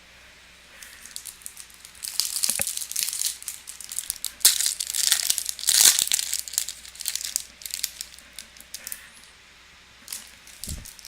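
Foil wrapper of a Topps Chrome baseball card pack being torn open and crinkled, a run of crackling from about two seconds in to about eight seconds. A soft thump comes near the end.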